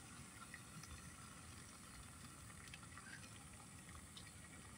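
Near silence: a faint steady hiss with a few soft clicks from a spork stirring food in a Jetboil cooking pot.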